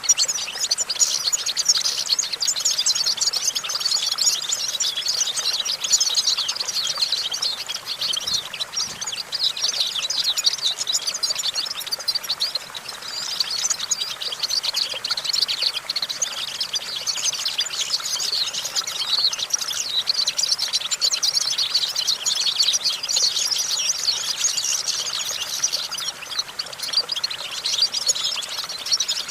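European goldfinch singing: a fast, continuous twittering song of rapid high chirps, with short lulls.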